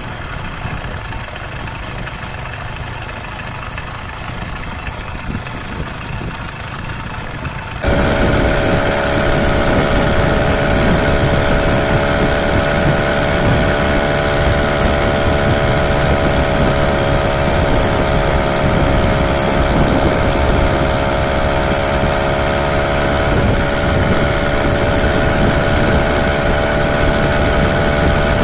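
80cc two-stroke motorized bicycle engine running steadily at riding speed, with wind rush. About eight seconds in, the sound jumps abruptly louder into a steady buzzing engine note.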